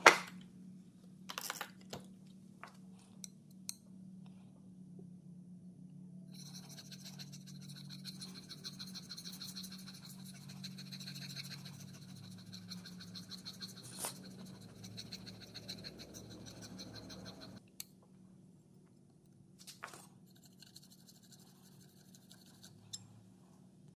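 Steel plane iron rubbed back and forth flat on a wet waterstone, a steady scraping from about six seconds in until about eighteen seconds in. A knock at the very start and a few light clicks before it, as the blade is set down and positioned on the stone.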